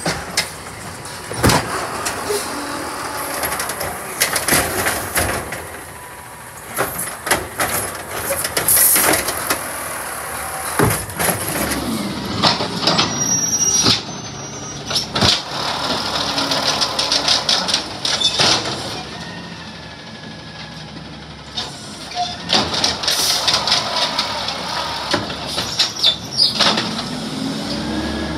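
Autocar ACX garbage truck working a recycling pickup: its engine revs up and falls back twice as the loader works. Throughout there are repeated clanks and bangs of the bin and recyclables being dumped, with hissing in the first part.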